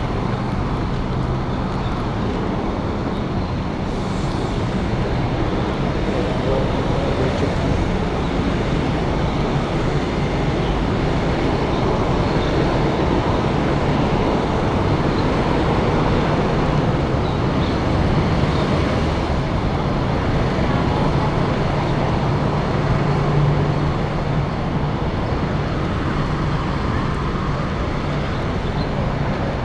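Steady road traffic noise with the low hum of bus and car engines, swelling for a few seconds about two-thirds of the way through.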